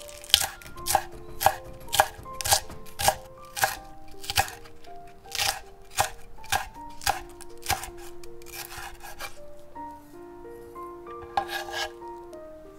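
Chef's knife chopping green onion on a wooden cutting board, about two strokes a second, each a crisp tap of the blade on the board. There is a pause late on, then a quick run of cuts near the end. Soft background music with held notes plays underneath.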